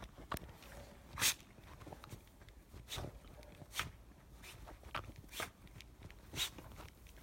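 Jack Russell terrier burrowing its muzzle through deep snow: short puffs of noise at irregular intervals, roughly one a second.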